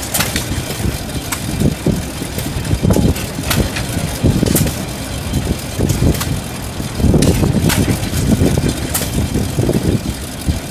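Vintage Atlas stationary gas engine on an Atlas cement mixer running and driving the turning mixer drum, its low exhaust beats coming in uneven louder bunches with quieter stretches between, plus a few sharp clicks.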